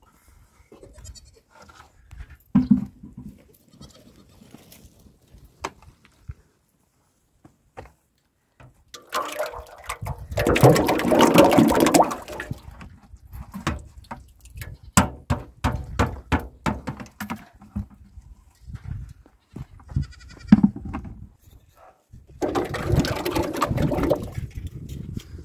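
Thick white dairy liquid poured from a plastic bucket into a large metal tub, splashing heavily twice, each pour lasting a few seconds. Between the pours come scattered knocks and clicks from the buckets, and goats bleat now and then.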